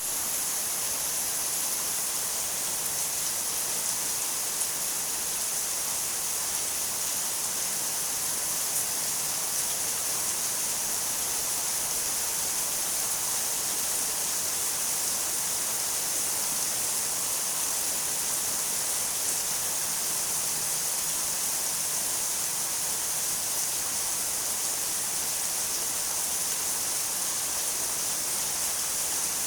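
Steady rain falling, an even, unbroken hiss with no change in level.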